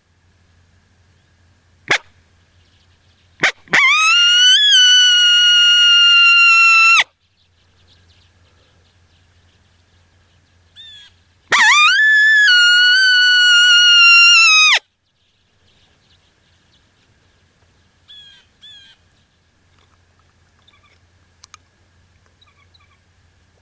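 Coyote howl calls from a predator call, a female invitation howl: two short sharp yips, then two long howls of about three seconds each. Each howl sweeps up in pitch, holds, then drops away at the end.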